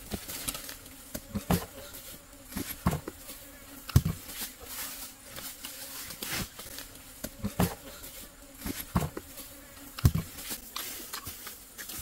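Sharp knocks or taps repeating unevenly, about one a second, over a faint steady buzz.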